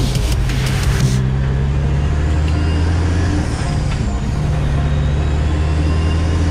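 Kenworth bed truck's diesel engine running under way, heard from inside the cab. Its note drops about a second in and again around three and a half seconds in, then picks back up, as the gears are shifted.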